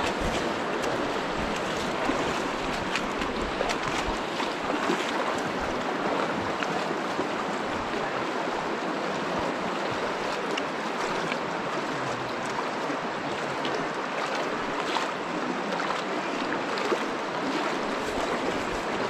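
Shallow river water rushing steadily over stones, with small sharp splashes scattered all through it.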